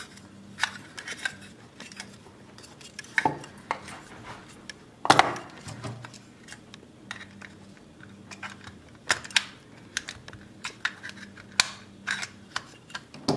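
Scattered clicks and knocks of hard plastic parts and a small screwdriver being handled while an IKEA TRETAKT smart plug's housing is pulled apart, with one louder knock about five seconds in.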